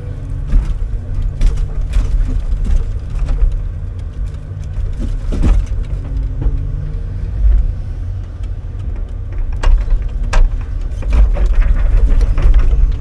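Timber truck's engine running steadily to drive the hydraulics of a Jonsered 1088 loader crane, heard from inside the crane cab. A few sharp knocks come through as the grapple handles logs.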